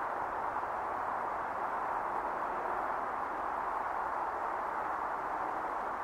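A steady, even hiss-like noise, unchanging throughout, with no separate sounds standing out.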